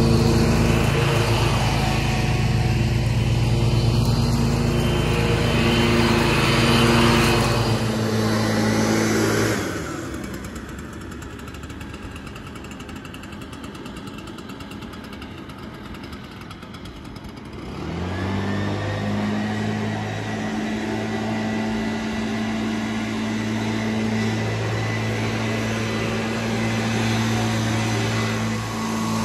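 A Gravely zero-turn mower's Kawasaki engine running close by, dropping away abruptly about nine and a half seconds in to a quieter stretch. About eighteen seconds in another small engine revs up and then runs steadily with a thin whine.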